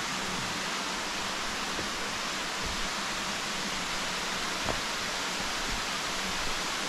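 A waterfall and the stream below it rushing steadily: a continuous, even hiss of falling and running water.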